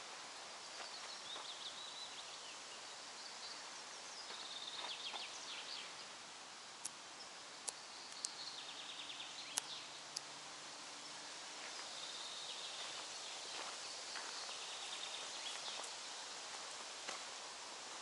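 Forest ambience: a steady soft hiss of air and leaves with small songbirds singing repeated trills and chirps, and a few sharp clicks around the middle.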